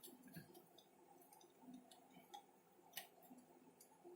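Near silence with a few faint, scattered clicks, the clearest about three seconds in.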